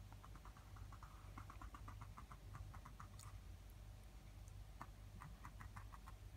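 Near silence: a steady low hum with faint, irregular light clicks, a run of them in the first three seconds and another short cluster near the end.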